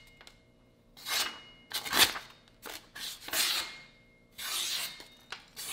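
Chinese vegetable cleaver slicing through a sheet of paper in about five separate strokes, each a short papery hiss. This is a sharpness test, and the blade cuts cleanly.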